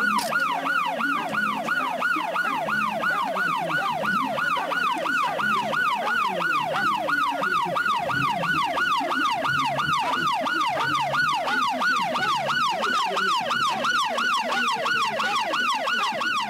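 Police car siren on yelp, its pitch sweeping up and down in fast, even cycles of about three a second, with a low rumble underneath.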